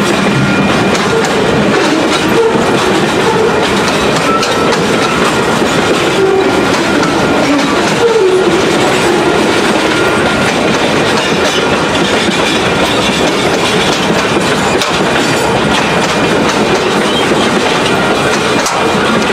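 Freight train of boxcars and tank cars rolling past close by: a loud, steady rumble and clatter of steel wheels on the rails. Through the first half a wavering squeal rides over it, typical of wheel flanges on a curve.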